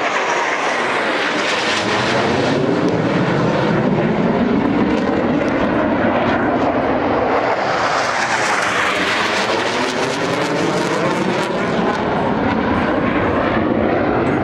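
Two military jet fighters flying a display pass, their loud, steady jet engine noise sweeping up and down in pitch with a whooshing, phasing sound as they move across the sky.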